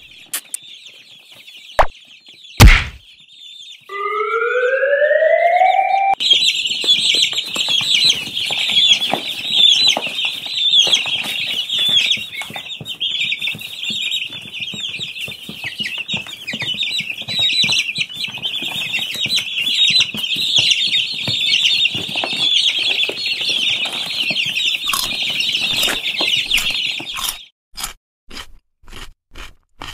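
Domestic chicks peeping, many at once in a dense, high, continuous chorus. Near the start there are two sharp knocks and a short rising whistle-like glide, and near the end the peeping stops and a run of quick, regular ticks begins.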